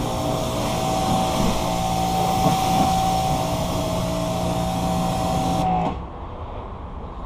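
Ryobi electric pressure washer running: a steady motor-and-pump whine with a high hiss of water spray. Both stop abruptly about six seconds in.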